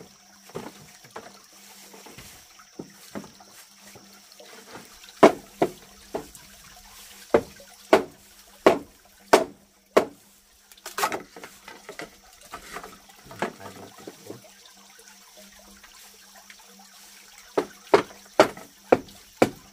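Water splashing and sloshing, as when hands work in a basin of water. The sharp splashes come in runs of four to six, roughly half a second to a second apart, with a quieter stretch in the middle.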